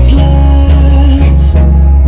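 A song with heavy, steady bass played at full volume through a Logitech Z906 5.1 speaker system.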